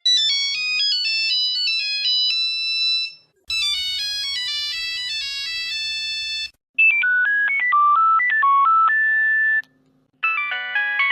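Nokia phone ringtones played one after another, each version lasting about three seconds with a short silence between. Three full versions play, and a fourth starts near the end. The first is a thin, high-pitched melody, and the later ones are lower and fuller, with several notes sounding together.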